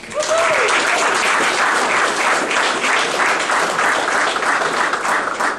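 Audience applauding, a dense run of clapping that starts suddenly and dies away near the end, with one brief whoop about half a second in.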